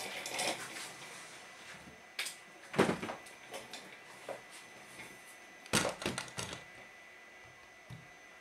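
A few knocks and clatters of tools and parts being handled on a workbench, the loudest about three seconds in and a quick run of clicks near six seconds.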